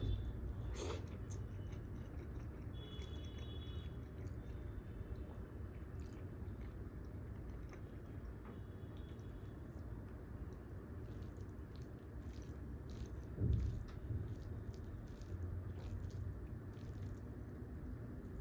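A person chewing and biting food close to the microphone, with many small mouth clicks over a steady low hum. A single low thump comes about thirteen seconds in.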